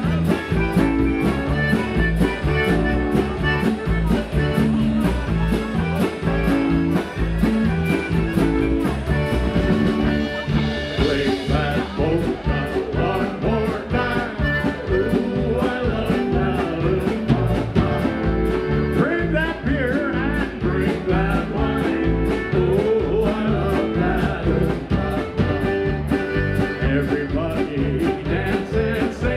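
Live polka band playing with a steady beat: accordion, electric guitar and drum kit.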